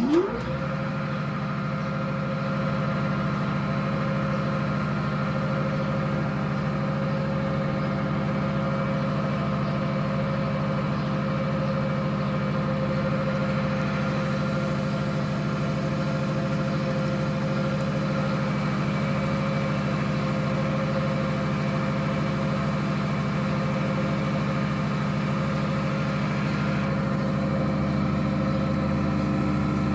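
TOS MN 80A precision lathe switched on: it spins up with a rising whine in the first half second, then runs steadily with a constant hum and a steady whine.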